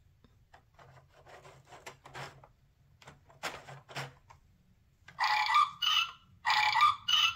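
Plastic gear wheels on a children's sound book clicking and rubbing as they are turned by hand, then the book's little speaker plays four short buzzy electronic sound-effect bursts.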